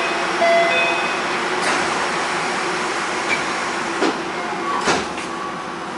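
Cabin sound of a stationary Osaka Monorail 3000 series car: a steady hum and rush of its ventilation and onboard equipment. A few short knocks come at about two, four and five seconds in.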